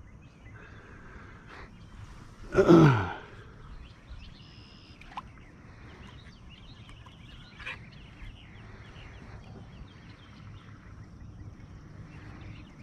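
Quiet lake ambience with a few faint high bird calls. About two and a half seconds in, a person gives one short loud exclamation that falls in pitch.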